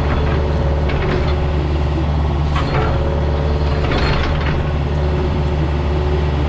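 Diesel engine of a compact excavator running steadily, with several knocks and scrapes over it as stone is handled.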